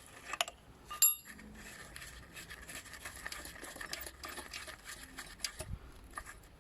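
Metal spanner clinking on the chain adjuster lock nut of a motorcycle swingarm as the nut is loosened. A sharp click about half a second in, then a louder metallic clink with a brief ringing about a second in, followed by faint small ticks and scrapes of the tool working.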